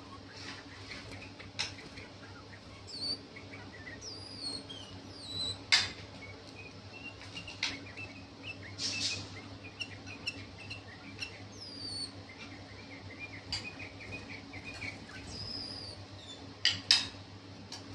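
White-eared bulbul giving its mating calls: short scattered chirps and thin, high whistled notes that curve downward. A few sharp clicks stand out, the loudest about six seconds in and near the end, over a steady low hum.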